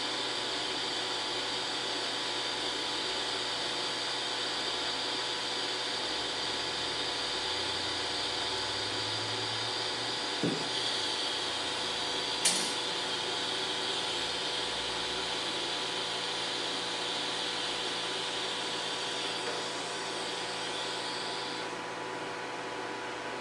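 A DC TIG welding arc from a Forney Easy Weld 180 ST at about 80 amps hisses steadily on steel plate over a low electrical hum. About ten seconds in the arc stops with a soft thump, and a sharp click follows a couple of seconds later. A steady hiss carries on until near the end.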